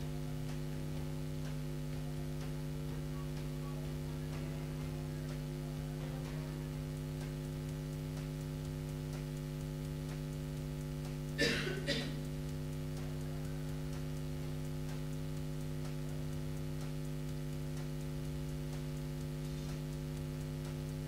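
Steady electrical mains hum from the lecture hall's sound and recording system, with two brief loud noises about half a second apart near the middle.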